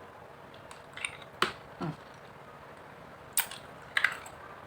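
Hard candy being bitten and crunched between the teeth: about half a dozen short, sharp cracks, a cluster about a second in and another about three and a half seconds in.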